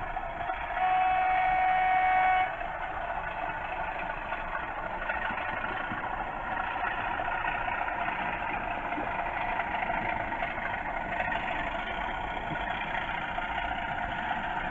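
Hornby TTS sound chips in model Class 37 diesel locomotives playing the diesel engine running sound through the models' small speakers. About a second in, a horn sounds once as a single steady note for under two seconds.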